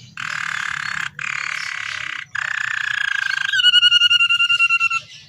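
Domestic canary singing: three rapid buzzy rolls of about a second each, then a clear rapid trill whose pitch falls slightly, ending about five seconds in.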